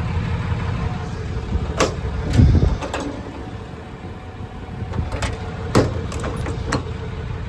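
A series of metallic clicks and knocks from a service truck's utility-body compartment doors and latches, with one heavier thump about two and a half seconds in, over a steady low rumble.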